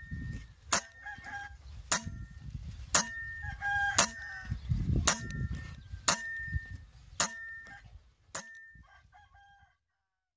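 Roosters crowing, over sharp clicks repeating about once a second. The sound fades out near the end.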